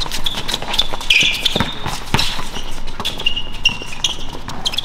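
Basketball dribbled on a court, bouncing about twice a second, with sneakers giving short high squeaks on the court surface.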